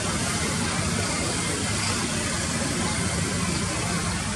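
Airbus A330-243's Rolls-Royce Trent 700 jet engines at idle thrust as the airliner taxis, a steady low rumble with an even rushing hiss over it.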